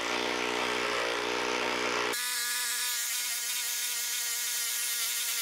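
Makita 12V brushless impact driver hammering a 1 1/4 inch spade bit into pressure-treated lumber. About two seconds in, the low rattle drops out abruptly and it runs on as a steadier whine. The driver is struggling to bore the hole and is judged not powerful enough to finish it.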